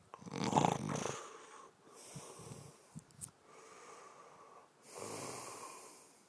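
Snoring: one loud, low snore in the first second, then a quieter breath with soft low flutters a couple of seconds in, and a longer, breathy exhale near the end.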